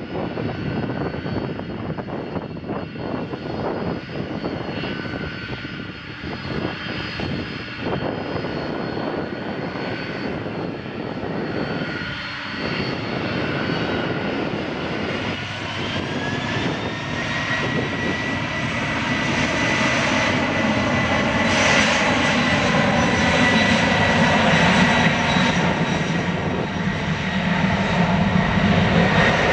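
Boeing 747-400F's four turbofan engines running as the jet lines up on the runway. About halfway through they spool up to takeoff thrust: a rising whine that levels off into a high steady tone, and the engine noise grows louder as the takeoff roll begins.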